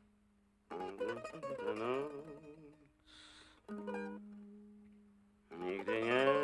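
A mandolin plucked in short phrases, with a held note that fades out, and a man's voice crooning along with the notes.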